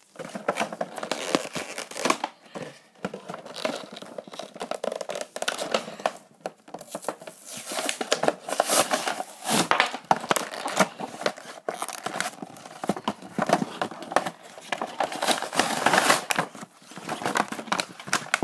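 Toy packaging being opened by hand: plastic wrappers crinkling and tearing, dense and irregular, with a few brief pauses.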